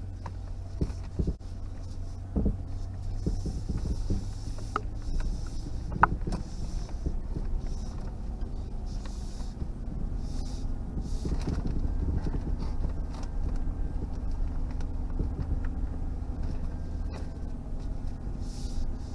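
Engine and road noise inside a moving vehicle on a woodland road: a steady low hum with scattered knocks and rattles, the loudest about six seconds in.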